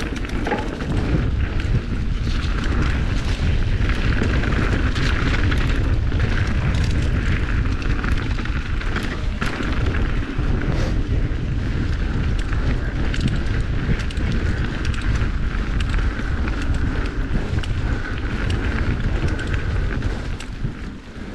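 Mountain bike riding fast down dirt singletrack: wind buffeting the camera's microphone as a steady low rumble, over tyre noise and the clatter of the bike over bumps.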